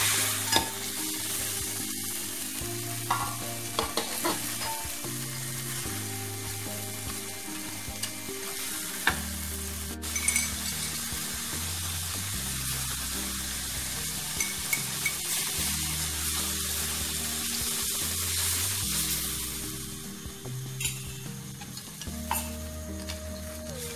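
Food frying in hot oil in a pan, a steady sizzle broken by a few sharp clicks.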